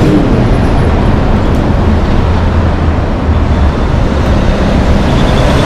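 Heavy diesel semi-trucks passing close by: a Kenworth's lumber-loaded B-train trailers roll past with tyre and trailer rumble over a steady low engine drone, and a second semi-truck approaches.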